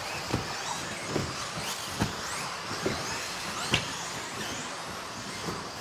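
Several 1/10-scale electric RC buggies racing on a carpet track: their motors whine up and down in pitch as they accelerate and brake. Short dull knocks come about once a second.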